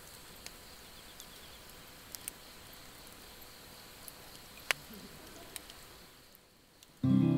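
Log fire crackling faintly, with a few sharp pops, the loudest about two-thirds of the way through. Near the end the fire sound fades out and acoustic guitar music starts.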